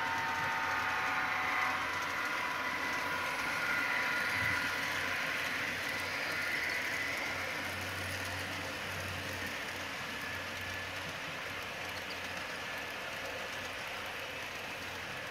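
Model Union Pacific streamliner passenger train running past, its sound decoder's horn sounding a chord that cuts off about a second and a half in, followed by the steady rolling noise of the passenger cars on the track, fading slightly.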